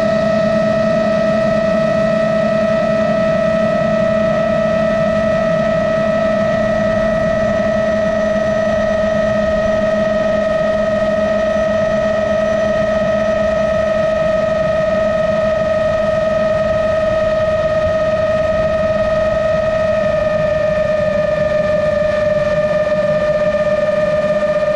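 Motors and propellers of a GepRC MOZ-7 long-range FPV quadcopter in steady cruise, a constant whine over rushing noise. The pitch drops slightly about twenty seconds in, as the throttle eases.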